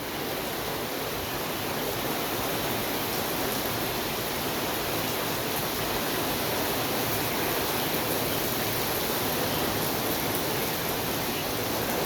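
Heavy thunderstorm downpour: rain coming down hard in a steady, even hiss.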